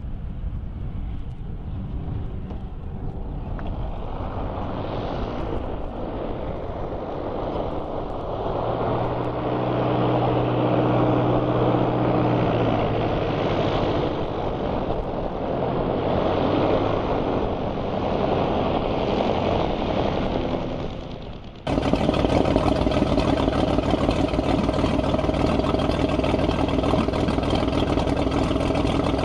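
A Velocity SE pusher light aircraft's piston engine running. It grows louder about a third of the way in and fades near the end. Then an abrupt cut to a 1960 Beech 35 Bonanza's six-cylinder engine running steadily and louder.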